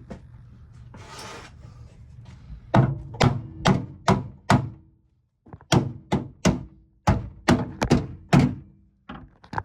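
Hammer blows on a car's dented rear quarter panel, knocking the bent sheet metal back into shape: a run of about five strikes, a short pause, then about eight more, roughly two a second, each with a short ring.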